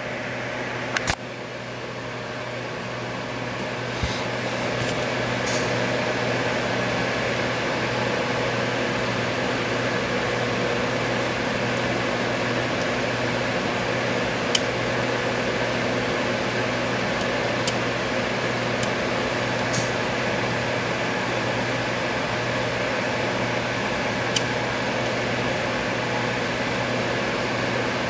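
Steady whirring mechanical hum with a constant low tone, like a fan or air conditioner, building over the first few seconds and then holding level. A few faint sharp clicks are scattered through it, fitting a pick and tension tool working the pins of a Medeco M3 lock cylinder.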